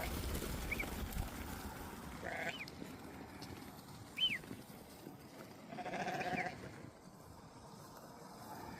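Sheep bleating twice, the second call longer, with a few short high chirps between.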